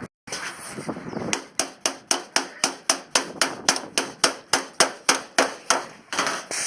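A hammer striking in a quick, steady run of about twenty blows, around four a second, as something is nailed down on a storm-damaged shed.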